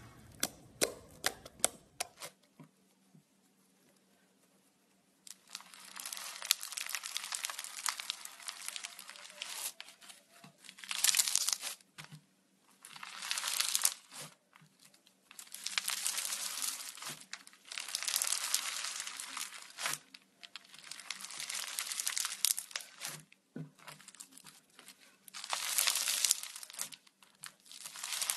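Purple floam (slime packed with foam beads) being squeezed and kneaded by hand, crackling and crunching in repeated bursts of a second or two. It is preceded by a couple of seconds of sharp clicking pops from white slime being pressed.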